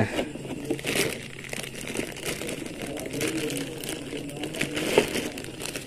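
Clear plastic wrapping crinkling and rustling irregularly as a baitcasting reel is handled inside it.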